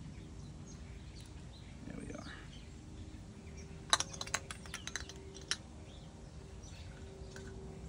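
Light metallic clicks and taps, about half a dozen within a second and a half near the middle, as an MSR Pocket Rocket 2 stove is handled and fitted onto its iso-butane fuel canister. A faint steady hum lies underneath.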